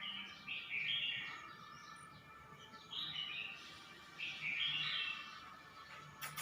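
Red-whiskered bulbul singing in short, warbled phrases, three of them about a second and a half to two seconds apart, with a sharp click near the end.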